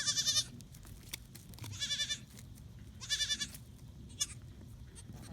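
Goats bleating: three short, high-pitched, wavering bleats about a second and a half apart, with a brief fainter one after them.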